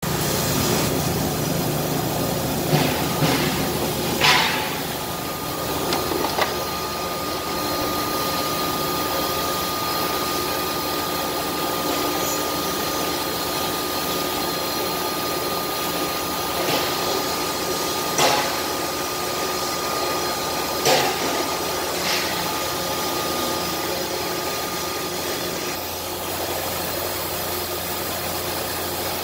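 CNC router running in its enclosure: a steady machine drone with a thin high whine that sets in about four seconds in and holds, broken by a few short sharp noises.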